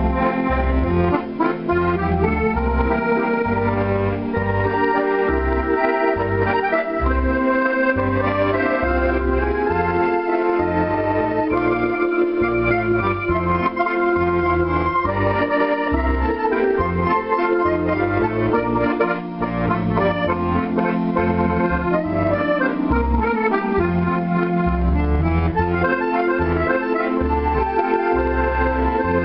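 A Zero Sette piano accordion being played: a tune on the right-hand keyboard over a regularly pulsing bass accompaniment.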